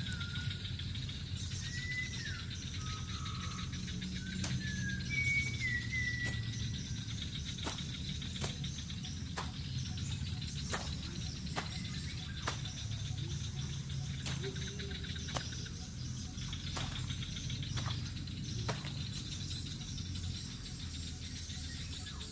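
Outdoor forest ambience: insects buzzing in steady high tones, and a bird whistling short gliding calls during the first few seconds, over a low rumbling haze. From about eight seconds in, a string of sharp knocks comes roughly once a second for some ten seconds.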